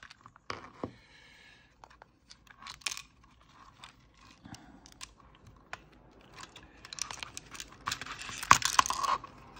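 Small plastic parts being handled: scattered clicks, taps and scrapes as a black plastic motor housing on its wires is lifted out of a hollow white plastic base box, with a denser run of scratchy clicks and rattles near the end.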